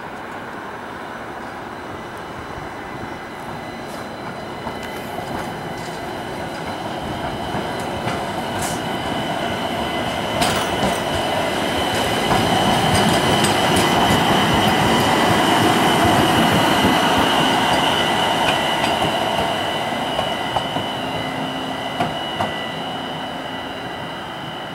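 Articulated light rail car passing on street-running jointed track: its rumble grows to a peak about halfway through and then fades as it moves away, with a steady high whine and scattered clicks of the wheels over the rail joints.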